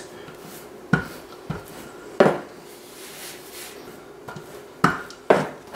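Wooden rolling pin rolling out sugar cookie dough on a floured metal work surface, with about four sharp knocks of the pin against the surface over quieter rolling and handling noise.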